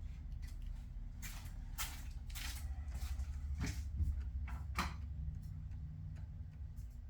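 A handful of light clicks and knocks, spaced about half a second to a second apart, over a steady low hum.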